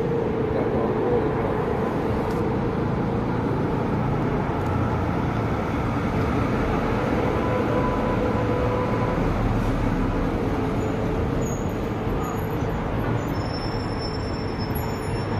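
Steady city street noise as a Melbourne B2-class tram rolls in on its rails and draws up at the stop, with faint high-pitched squeals near the end.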